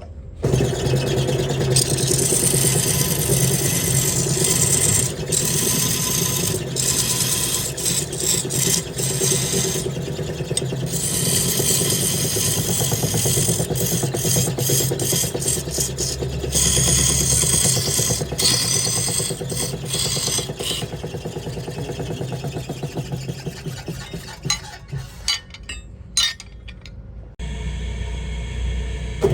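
Wood lathe running while a tool scrapes the spinning wood in repeated passes that start and stop. Near the end the cutting stops and only the lathe's motor hum continues.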